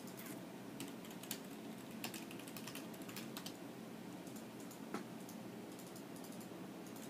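Hamster chewing and crunching food inside a wine glass: quick, irregular little crunching clicks, thickest over the first few seconds, with a lone click about five seconds in.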